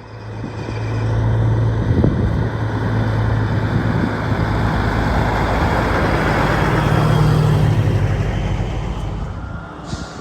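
Diesel engine of a large harvest machine running close by, with a steady low hum. It grows louder over the first couple of seconds, its pitch steps up a little past the middle, and it fades near the end.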